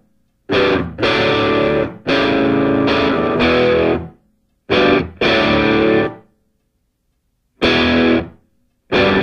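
Outro music: distorted electric guitar playing chords in stop-start phrases, with short silences between them.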